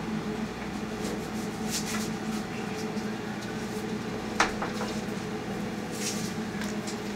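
Steady low hum of an indoor room, like kitchen equipment or ventilation running, with one sharp click about four and a half seconds in and a few faint ticks.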